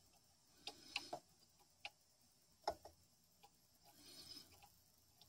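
Faint, scattered small clicks and taps from handling the soldering work on the player's chassis, with a short soft hiss about four seconds in, against near silence.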